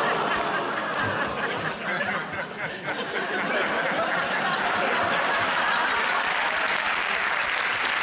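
Studio audience laughing and applauding at a joke, a steady wash of clapping and laughter with no break.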